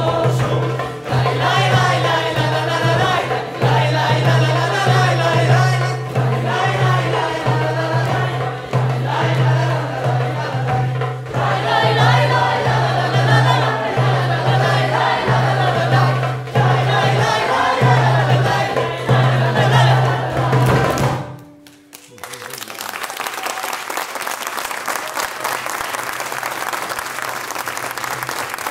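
Choir and ensemble singing over a steady low drone, stopping abruptly about three-quarters of the way through, followed by an audience applauding.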